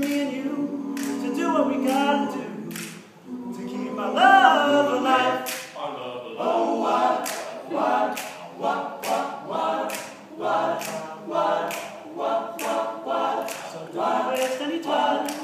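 An all-male college a cappella group singing: a held chord at first, a voice rising in pitch about four seconds in, then the voices pulsing on a steady beat of about one a second with sharp percussive accents.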